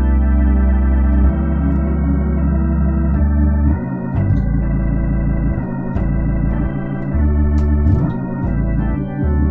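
Hammond A100 organ played through a Leslie Model 45 speaker cabinet: sustained chords on the manual over bass-pedal notes, the chords changing several times and the bass dropping out briefly between some of them.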